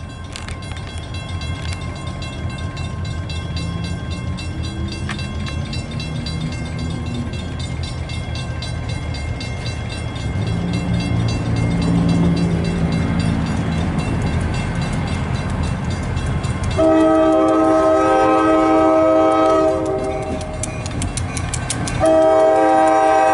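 Diesel-electric freight locomotives approaching, their engines rumbling and getting louder around the middle. About seventeen seconds in a multi-chime locomotive horn sounds a blast of about three seconds, and a second blast starts near the end.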